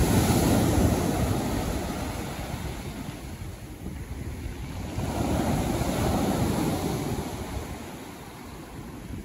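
Surf breaking and washing up the beach in swells, the first near the start and another about five seconds in, with wind buffeting the microphone.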